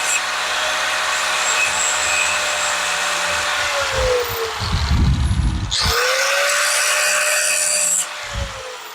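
A handheld power tool running at speed with a steady whine. It is let go about four seconds in and winds down, is started again just under six seconds in, and runs until about eight seconds in before winding down again.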